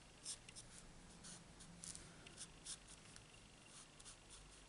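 Faint scratching of a felt-tip marker stroking across cardstock while colouring in a stamped image, in short uneven strokes about twice a second.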